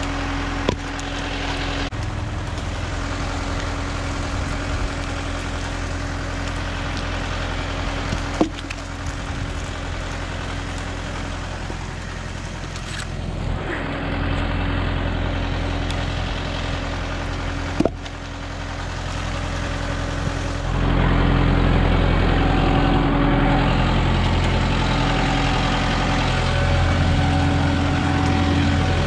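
Compact tractor engine running steadily, rising to a higher, louder run about two-thirds of the way through. A few sharp knocks come over it.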